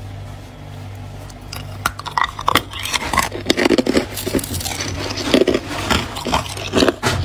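Close-up crunching of buckwheat ice as it is bitten and chewed, many sharp cracks coming thick and fast from about a second and a half in. A low steady hum lies underneath.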